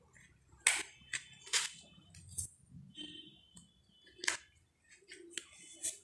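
Cardboard jigsaw puzzle pieces being pressed and tapped into place on paper: several short, sharp taps and clicks at irregular intervals, with light rustling between them.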